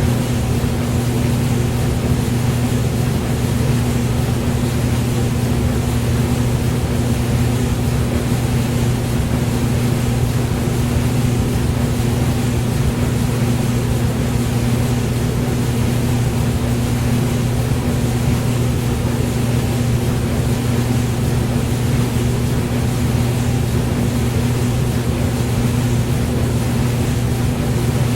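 Hair dryer running continuously: a steady motor hum under an even rush of blown air, with no change in speed.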